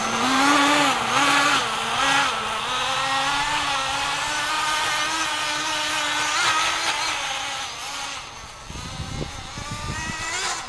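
Small nitro glow engine of a radio-controlled snowmobile running, its pitch rising and falling with the throttle, then fading away about eight seconds in.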